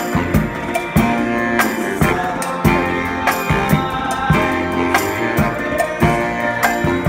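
Brass marching band playing: saxophones, trumpets and sousaphones over a steady beat of drums.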